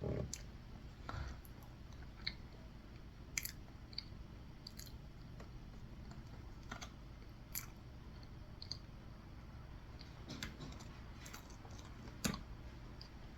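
Someone quietly chewing a mouthful of red velvet cake, with a few sharp clicks scattered irregularly through it.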